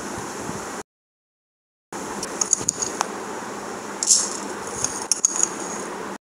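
Coriander seeds tipped from a spoon into a dry metal pan, giving scattered small rattling clicks over a steady background hiss. The sound drops out to silence for about a second near the start.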